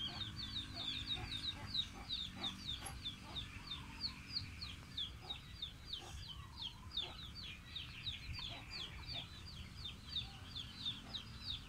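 Chicks peeping: a steady run of short, high, falling peeps, about four a second, without a break.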